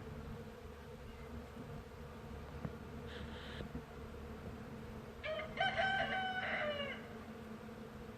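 A rooster crows once, a call of almost two seconds starting about five seconds in, over a steady buzzing of bees. A fainter, shorter call comes about three seconds in.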